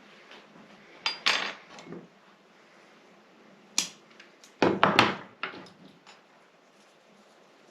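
Metal bonsai tools clicking and clinking as they are handled and used: short clusters of sharp clicks, the loudest cluster about five seconds in.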